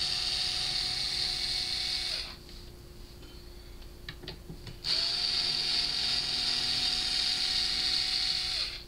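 Electric screwdriver motor running steadily in two spells, about two seconds and then about four seconds, as it backs screws out of a speaker cabinet. A few light clicks in the pause between.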